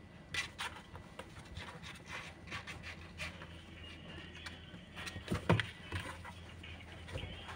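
Two kittens play-fighting on cardboard: their claws and paws scratch and scrabble in quick, irregular scrapes, with a louder thump about five and a half seconds in as they tumble against the box.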